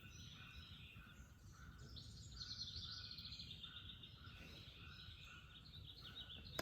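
Faint outdoor ambience with birds chirping: a short chirp repeated about twice a second and higher twittering above it.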